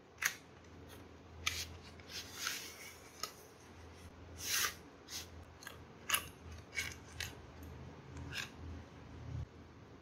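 Hands handling small cardboard stationery boxes and a metal drawing compass: a string of sharp clicks and short rustles, with two longer rustles about two and a half and four and a half seconds in, over a faint steady low hum.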